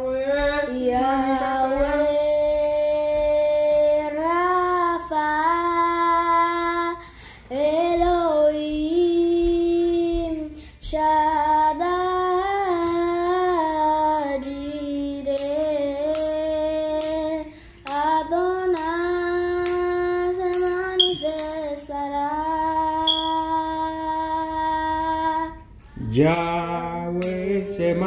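A young girl singing unaccompanied, holding long notes with smooth pitch slides and breaking for breath between phrases every few seconds.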